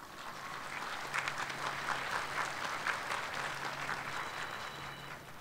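Audience applauding in a hall. The applause builds over the first second, holds, and fades away near the end.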